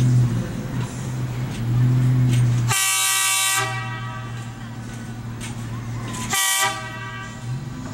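An approaching excursion train sounds its horn twice: a blast of just under a second, then a short toot a few seconds later, over a steady low rumble from the train.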